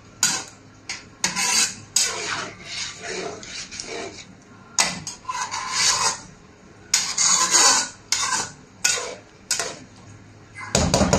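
Spatula scraping and stirring through a soupy curry in a non-stick wok. The strokes come irregularly, about one or two a second, each a short rasping scrape against the pan.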